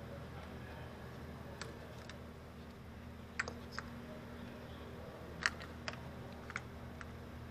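A handful of short, sharp plastic clicks as the ignition coil wiring connectors on a Kia Soul 2.0L engine are unclipped and handled, over a faint steady hum.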